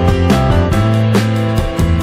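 Background music: upbeat instrumental with guitar over a steady beat.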